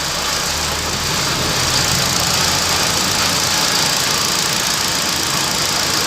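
Hyundai i20 petrol engine idling steadily, with a steady hiss over it. The abnormal bearing noise is gone, the alternator and AC compressor bearings having just been replaced.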